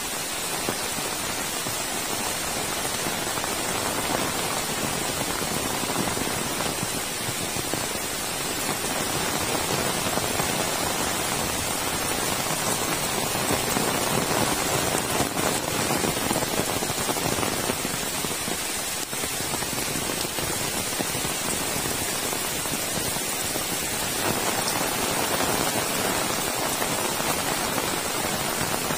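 Heavy rain falling steadily, an even hiss that swells and eases a little.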